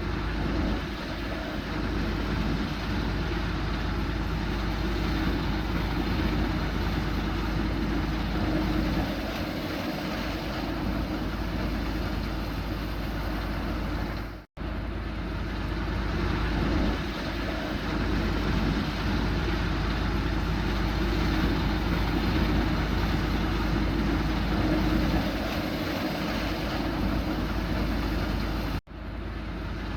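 Punni combine harvester running steadily while threshing a guar crop: a continuous engine and machinery drone. It breaks off for an instant about halfway through and again near the end.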